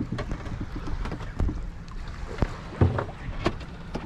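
Choppy water slapping against the hull of a small fishing boat lying at rest, over a low rumble, with irregular short knocks.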